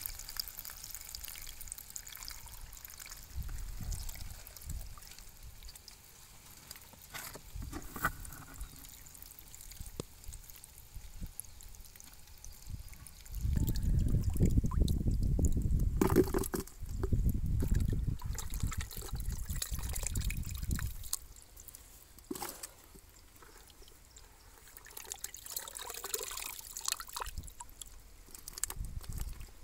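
Muddy water trickling and splashing into a plastic bucket as small live fish are scooped out by hand and the water drains back through the fingers. About halfway through, a louder low rumble comes in for several seconds, with a few sharp knocks.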